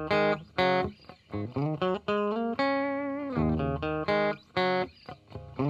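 Intro music: a plucked guitar melody played one note after another, each note ringing briefly and fading.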